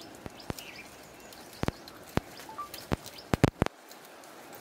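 Sri Lankan elephant feeding at a bush, its trunk tearing and snapping twigs and leafy branches: a string of irregular sharp snaps and cracks, several in quick succession a little past three seconds in. Birds chirp faintly behind.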